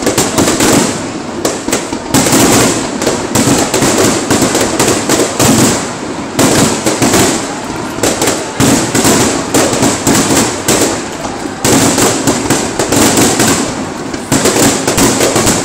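Aerial firework shells bursting in quick succession: a continuous, dense run of sharp cracks and bangs with no pause.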